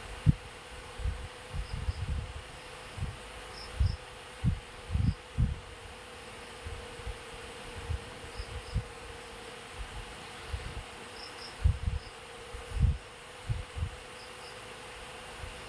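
Steady insect-like buzzing with faint high chirps in pairs every second or two, under irregular low thumps that are the loudest sounds.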